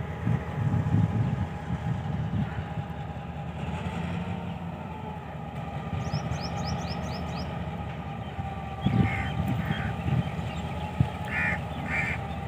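Pakistan Railways GMCU-15 diesel locomotive engine running steadily with a low drone. Birds chirp in a quick run of high notes about six seconds in, and a few short calls come near the end.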